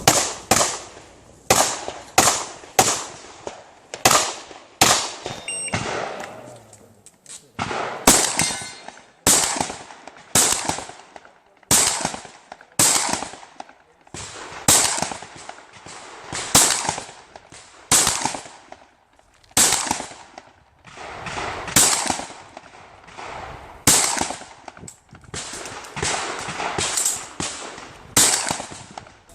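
Shotgun fired in a fast string at an IPSC shotgun match, some two dozen sharp shots about a second apart, each with a short echoing tail. There are brief pauses about seven seconds in and again near twenty seconds.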